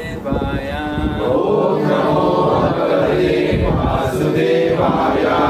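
A group of voices chanting together in long, held notes that slide from pitch to pitch.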